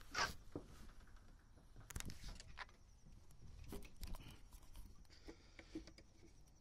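Quiet handling noise: a few scattered clicks and knocks, with a hand working the latch of a generator access door near the end.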